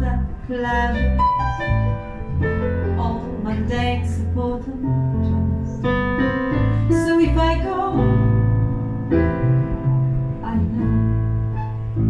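A woman singing live with piano accompaniment played on an M-Audio digital keyboard.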